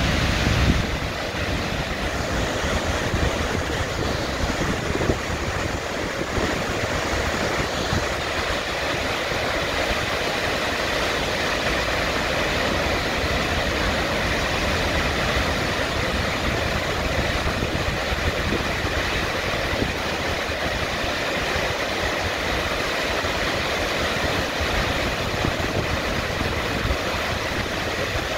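Waterfall in flood: a loud, steady rush of falling water with a deep rumble underneath.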